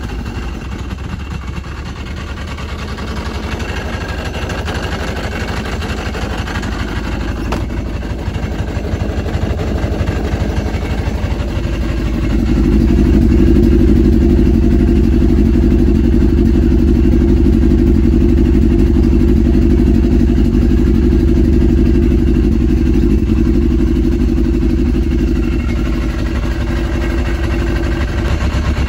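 Yamaha RX-1 snowmobile's four-stroke inline-four engine idling steadily. It becomes louder and fuller from about twelve seconds in, heard close to the exhaust outlet.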